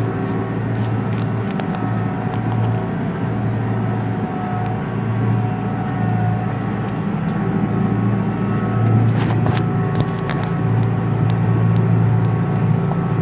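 Kubota M135 GX II tractor's diesel engine running steadily as it works across a waterlogged rice field, heard from inside the cab. Scattered short sharp clicks sound over it.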